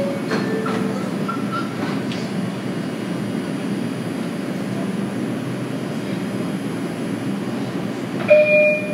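Steady hum of a stopped R142 subway train standing with its doors open. A short electronic tone sounds near the end.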